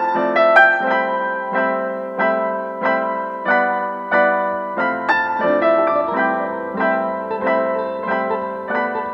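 Background piano music: a gentle melody of evenly spaced notes, about two a second, each ringing and fading, with a low bass line entering about five seconds in.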